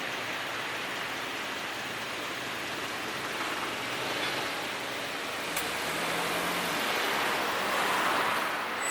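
Rushing rolling noise of an approaching E233 series electric train, steadily growing louder over the last few seconds.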